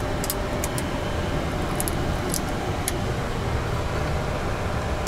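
Steady low rumble and rush of ventilation and fans on a parked Boeing 737 flight deck, engines not yet started, with about five light clicks in the first three seconds as cockpit switches are set.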